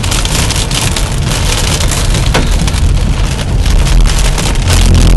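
Hail and heavy rain drumming on a car's roof and windshield, heard from inside the cabin: a loud, dense clatter of small impacts. A steady low hum takes over just before the end.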